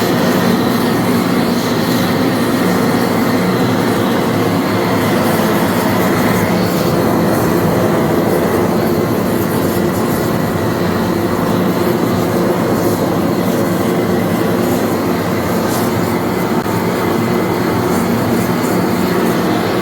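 TIG welding arc burning steadily, a loud even hiss and buzz that starts and cuts off abruptly.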